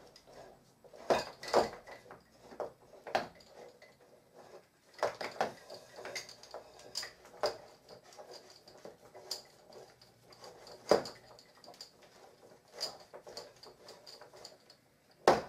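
Wooden play gym being handled and its plastic joint screws hand-tightened: irregular knocks and clacks of wooden bars, beads and plastic joints, a few sharper than the rest.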